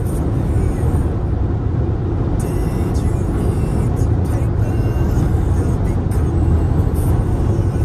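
Steady road and engine noise heard inside a car's cabin while cruising at highway speed: a constant low rumble with tyre hiss and no change in pitch or level.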